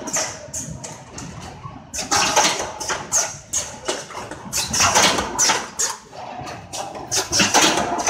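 Fixed-knot fence machine running, its wire feed and knotting mechanism clattering in quick, uneven metallic strokes.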